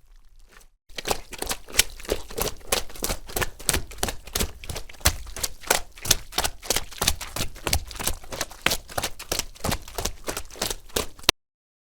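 Quick, steady footsteps squelching through mud, about four steps a second for roughly ten seconds, then cut off abruptly.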